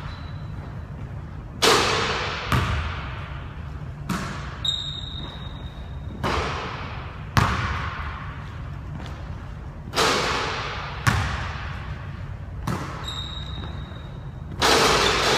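Basketball thudding on a hardwood gym court as shots are taken and rebounded: about nine hard, echoing impacts at irregular intervals.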